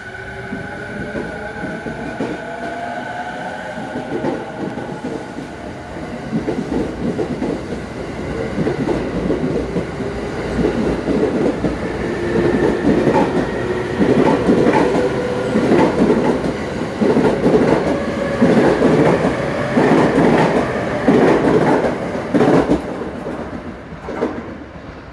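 A JR East E217 series electric multiple unit pulling out of a station. Its motor whine rises in pitch over the first few seconds, then the wheels clatter over rail joints about once a second, louder as the cars pass close and dying away as the last car leaves.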